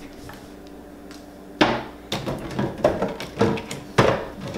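Knocks and clatter of a kitchen cupboard and the bottles inside being rummaged through: a sharp bang about a second and a half in, a few lighter knocks after it, and another sharp bang near the end.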